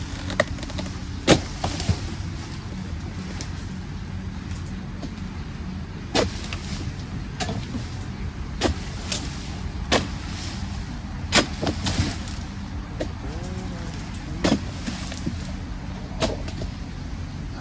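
Harvesting chisel (dodos) on a pole chopping into oil palm frond bases: sharp, separate chops every one to three seconds, about a dozen in all, over a steady low rumble.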